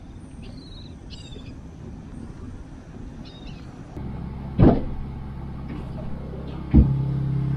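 Wind rumbling on the microphone with a few faint high chirps. Then, inside the boat's cabin, a low steady hum with two loud knocks; the hum grows stronger after the second knock.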